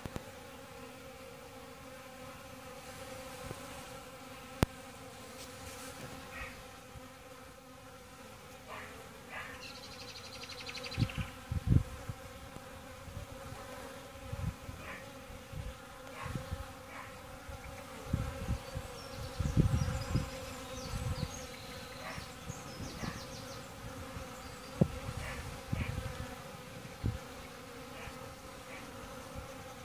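Honeybees buzzing steadily around a bee drinker. The swarm hum is broken by a few low rumbles, the loudest near the middle, and some sharp clicks.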